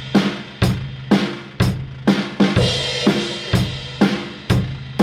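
Drum kit played in a shuffle-rhythm passage: snare and bass drum strikes about twice a second under a washing crash cymbal.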